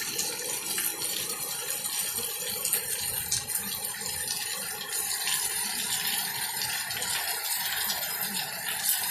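Heavy rain coming down hard: a steady hiss of water with many fine drop ticks throughout.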